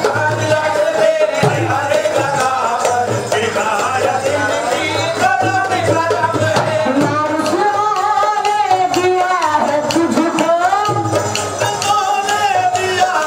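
Qawwali sung live: a male lead voice through a microphone, with pitch sliding in long melismatic lines, over a harmonium and the steady strokes of dholak hand drums.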